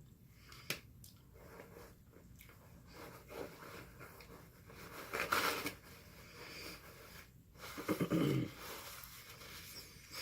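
A person chewing food close to the microphone, with wet mouth clicks, a loud breathy sound about five seconds in and a short voiced sound near eight seconds.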